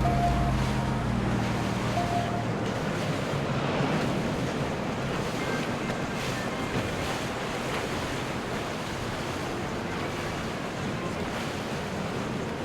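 Steady, even wash of water and wind noise, with the last held notes of background music fading out in the first two seconds or so.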